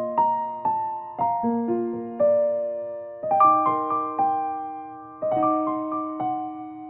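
Background keyboard music: a gentle piano-style melody of struck notes and chords that fade away, with a new phrase starting about every two seconds.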